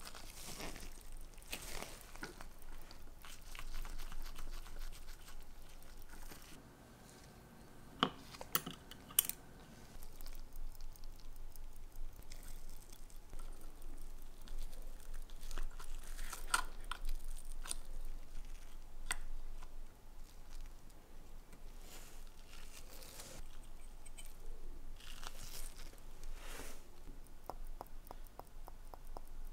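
Close-up bench handling of a vintage Swiss AS 1123 wristwatch movement during disassembly. Gloved fingers rustle and crinkle, and a few small, sharp clicks come from the metal screwdriver and tweezers on the movement, three of them in quick succession about eight seconds in.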